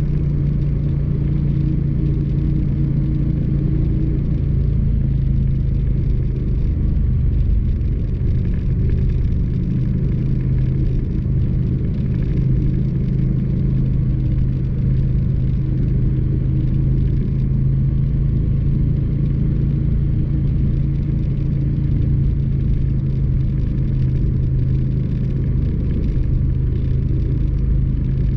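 Motorcycle engine running at a steady cruise, holding one even engine note, over a low, constant noise of wind and road.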